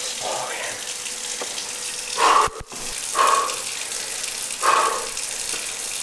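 Steady hiss of water, with about five short breathy puffs spaced a second or more apart.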